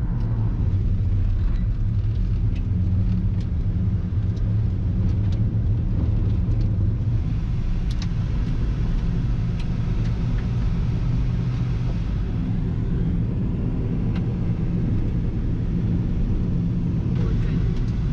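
Road noise inside a car driving on a dirt road: a steady low rumble of tyres and engine, with scattered faint ticks.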